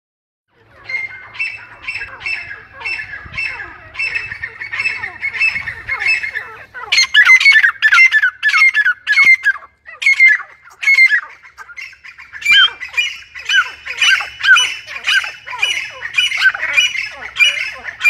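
Grey francolin calling: a fast run of short, shrill, repeated notes, each sliding down, about three a second. The calls grow louder about seven seconds in, with a couple of brief breaks.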